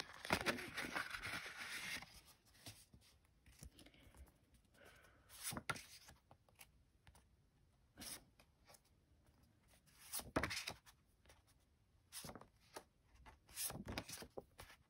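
Pink paper envelope being peeled open with a paper rustle for the first two seconds, then bromide photo prints being slid out and flipped through, a short paper rustle every second or two.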